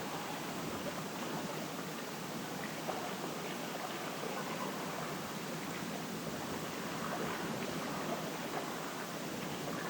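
Steady rush of moving water, even and continuous, with small irregular flecks of sound scattered through it.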